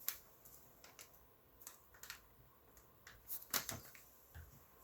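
Light scattered clicks and taps of hard plastic CGC comic slabs being handled, with a louder cluster about three and a half seconds in.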